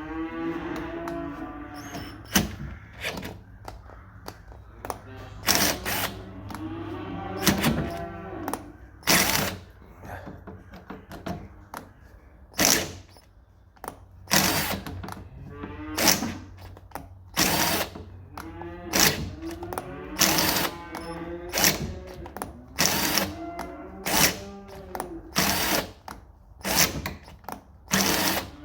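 Drill driving an M8 tap into a door hinge to cut new threads: the motor speeds up and slows repeatedly as the tap is run in and out, with sharp clicks and knocks every second or so between the whirs. Background music plays underneath.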